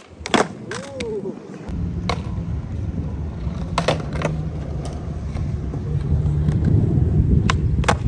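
Skateboard wheels rolling on concrete, a steady low rumble that starts about two seconds in and grows louder, with several sharp clacks of the board hitting the ground. A short voice call near the start.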